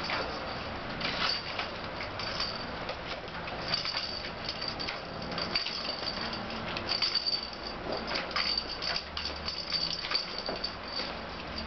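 Bedlington terrier puppies playing on a parquet floor: irregular clicks, scuffs and rustles of paws and claws on the hard floor and on loose newspaper sheets.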